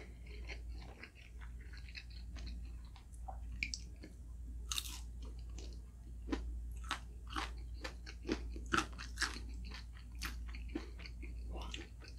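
Close-up eating sounds: a person biting and chewing crunchy food, with irregular crisp crunches and mouth clicks. A few louder crunches come about five and nine seconds in.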